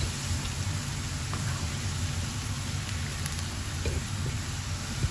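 Battered chicken pieces deep-frying in a pan of hot oil: a steady crackling sizzle, with a low steady hum beneath it.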